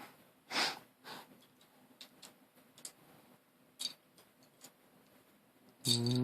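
Small plastic puzzle-cube pieces clicking and tapping as they are handled and fitted into a partly rebuilt V-Cube 7, a few sparse clicks about a second apart. A short breathy sound about half a second in and a brief hummed voice sound near the end.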